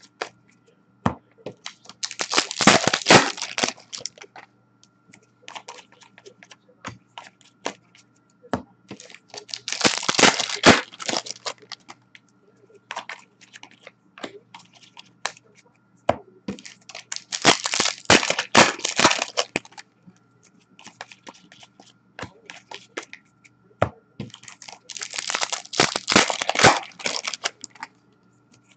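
Upper Deck hockey card pack wrappers being torn open and crumpled, four times about seven seconds apart, with light clicks and flicks of the cards being handled in between.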